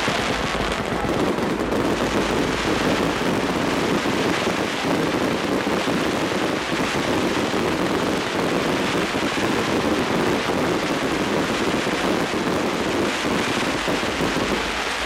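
A pyrotechnic waterfall firework, a long curtain of falling sparks, crackling as a dense, steady rattle of rapid pops.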